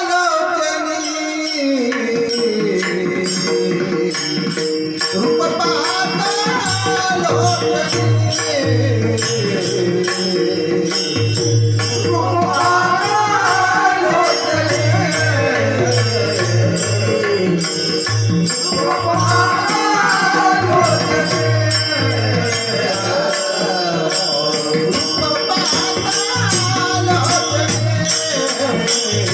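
Instrumental introduction to a Marathi devotional bhajan. A melodic line glides up and down over a steady jingling percussion beat and a low repeating bass.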